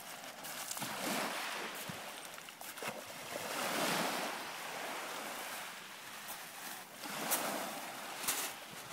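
Small sea waves washing onto a pebble beach, swelling and fading about three times, with a few faint clicks.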